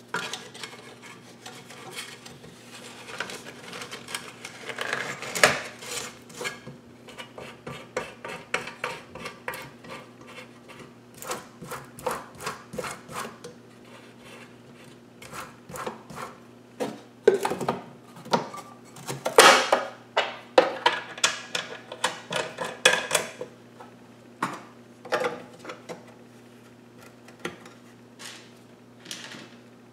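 Irregular clicks, clanks and rattles of metal parts on a small Central Machinery bench belt sander being handled while the machine is opened and a new sanding belt is fitted after the old one broke. The sander's motor is not running.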